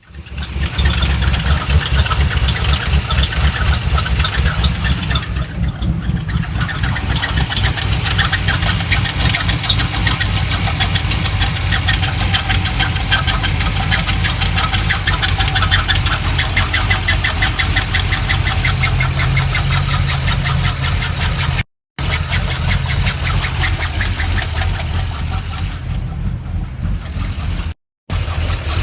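Chevrolet Corvette C6's small-block V8 idling with a loud, rapid, even ticking, which the owner takes for a bad lifter. The sound cuts out briefly twice near the end.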